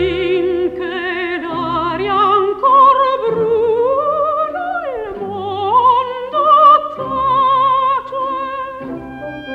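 Coloratura soprano singing an operatic aria in Italian with wide vibrato, over orchestral accompaniment. The voice slides down about five seconds in and then climbs again. It is an old 1957 recording with no high treble.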